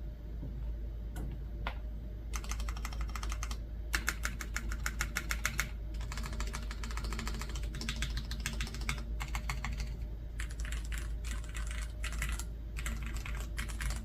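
Typing on a top-mount Soul70 custom mechanical keyboard with vintage Cherry MX Black linear switches, GMK keycaps and no case foam: a few single keystrokes, then bursts of fast typing broken by short pauses.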